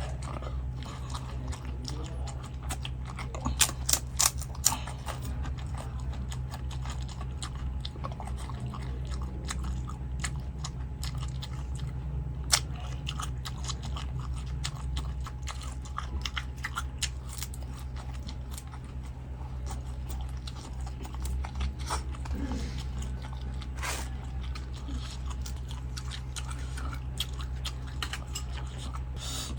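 A person chewing and biting food close to the microphone, with scattered crunches; a cluster of sharper, louder crunches comes about four seconds in and another about twelve seconds in. A steady low hum runs underneath.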